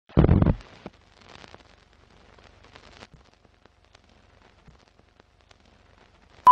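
Film countdown leader sound: a loud thump at the start, then faint crackle and scattered ticks like old film running through a projector, ending in a short beep.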